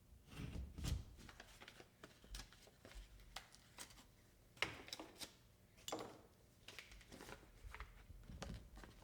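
Faint scattered scraping, rustling and light tapping as a drywall patch is handled and test-fitted into a hole in the wall, with a sharper click a little before the middle.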